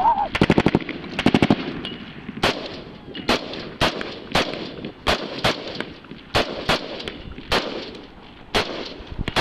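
Military carbines firing at close range: two quick strings of rapid shots in the first two seconds, then single shots every half second to a second.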